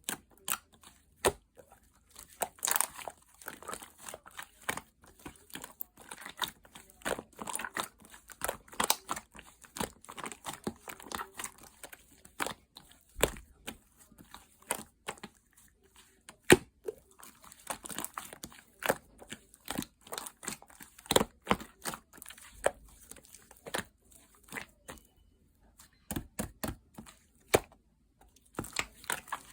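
Hands kneading and pressing mixed slime, making irregular sharp pops and clicks with crinkly, sticky stretching noises between them.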